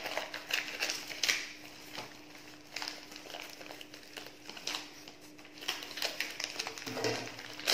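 Plastic packaging of crab sticks crinkling and rustling in irregular short clicks as it is handled and cut open with scissors, over a faint steady hum.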